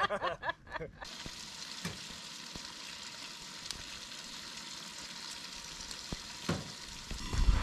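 Bacon sizzling in a frying pan on a propane camp stove, a steady hiss with scattered pops, starting about a second in.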